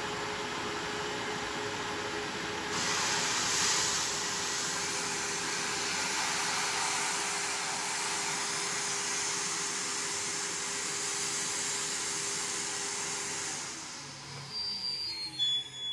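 Wet/dry shop vacuum running steadily, drawing suction through a hand carpet extractor tool while rinse liquid is poured into the tool; its sound turns brighter about three seconds in. Near the end the motor is switched off and winds down in a falling whine.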